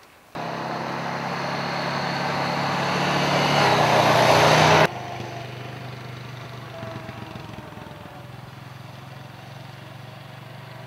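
Quad bike (ATV) engine running as it drives past, growing louder for the first few seconds. About five seconds in it drops suddenly, then runs on steadily and quieter as it moves away.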